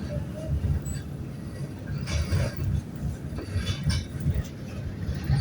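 Four-cylinder diesel engine of a Mercedes-Benz OF-1519 city bus running with a low, uneven rumble.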